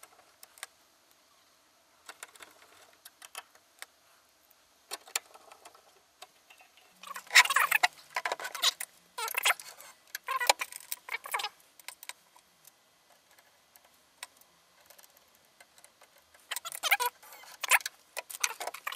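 Sheet-metal casing of a Tascam DA-30 mkII DAT deck being handled and fitted back together: scattered clicks, then bursts of metallic clattering and rattling about seven to eleven seconds in and again near the end.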